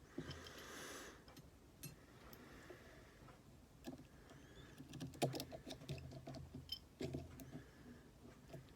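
Faint, scattered clicks and taps of small tools and phone parts being handled as an iPhone 6s is put back together, with a brief rustle at the start.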